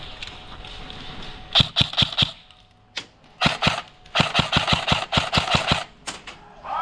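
Airsoft gun firing in quick strings of sharp cracks: a short group of shots, a pair, then a longer run of about a dozen rapid shots.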